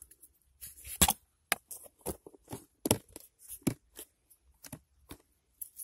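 Handling noise from a thin plastic tub boat and its wiring held close to the microphone: a string of irregular clicks, knocks and crackles, loudest about a second in and again about three seconds in. No motor is running; the boat's power has been switched off.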